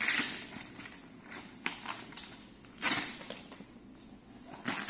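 Fabric cover rustling and sliding as it is pulled off the hand bike's metal frame, in a few short bursts: near the start, at about 1.7 and 3 seconds, and near the end.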